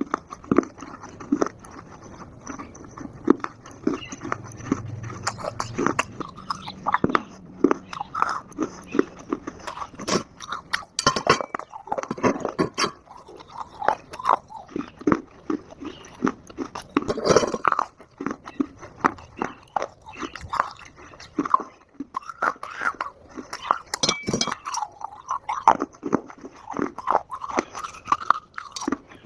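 Close-miked biting and chewing of dry multani mitti (fuller's earth clay): a steady run of irregular crunches and crumbling clicks, several a second.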